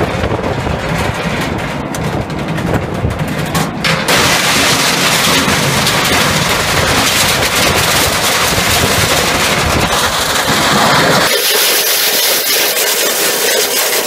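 A 32 by 24 inch hammer mill running, then smashing a whole printer fed into its hopper. A loud, dense crashing and rattling of plastic and metal being broken up sets in about four seconds in and keeps going. About eleven seconds in the deep rumble drops away, leaving a higher hissing rattle.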